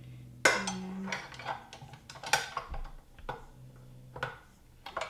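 Stainless steel bowl and beater of a KitchenAid Professional 550 HD bowl-lift stand mixer clanking and clicking as they are seated and locked into place: a loud clank about half a second in, a second strong knock a couple of seconds later, and several lighter clicks.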